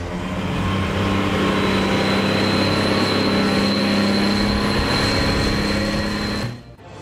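Case IH Magnum MX255 tractor's diesel engine running steadily as it drives over a silage clamp, with a thin high whine held over the engine note. The sound cuts out abruptly near the end.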